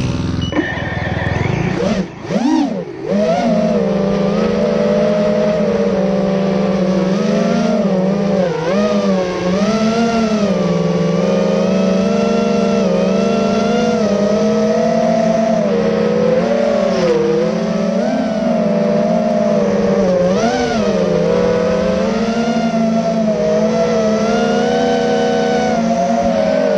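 FPV quadcopter motors and propellers whining steadily, the pitch wavering up and down with the throttle. A sharp dip and rise in pitch comes about two to three seconds in.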